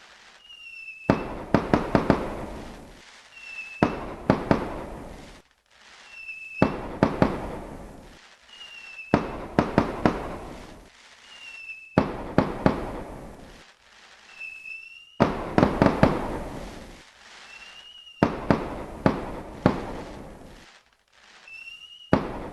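Fireworks going off over and over: each time a short whistle, then a quick cluster of sharp bangs that fade into crackle, repeating about every three seconds.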